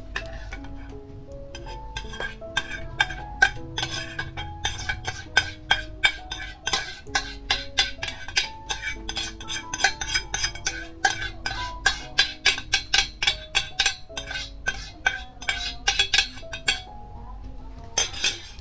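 Background music: a melody of held notes over a quick, steady beat, the beat dropping out near the end.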